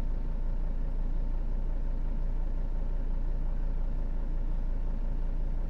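Mercedes Sprinter diesel engine idling steadily with the clutch pedal held down. The dual-mass flywheel's knocking is gone and the idle is settling, which points to the suspected worn dual-mass flywheel.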